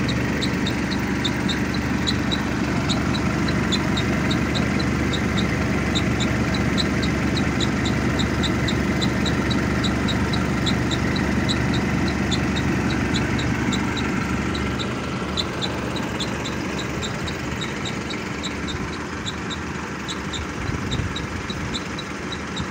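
Alexander Dennis Enviro400 bus engine idling, with a loose part rattling in a regular ticking about two to three times a second. The ticking fades out about two-thirds of the way through, as the engine sound drops a little.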